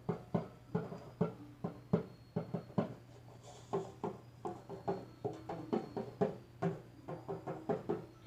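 A quick, uneven run of short plucked-string notes, several a second, over a steady low hum.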